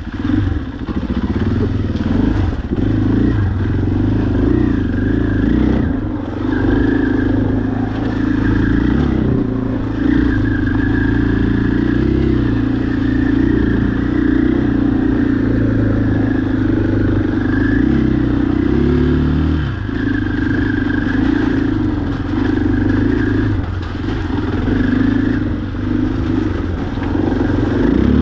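Off-road vehicle engine running continuously while riding, its pitch wavering up and down with the throttle.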